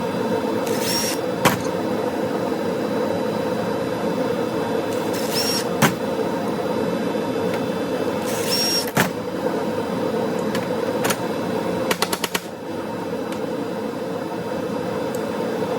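Metal parts of a golf cart charger clicking and clinking as it is taken apart, over a steady hum. Three times, about four seconds apart, a short high hiss is followed by a sharp click, and a quick run of four clicks comes near the end.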